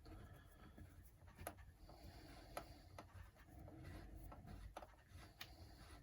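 Faint scratching and rubbing of a hex screw being turned in by hand with a hand driver, with a few small sharp clicks of metal on metal.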